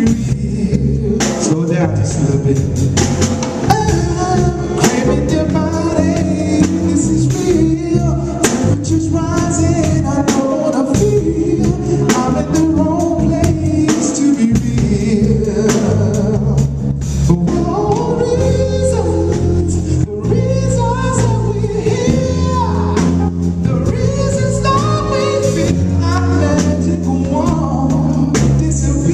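Band playing a song with male and female vocalists singing over drums, bass and keyboards.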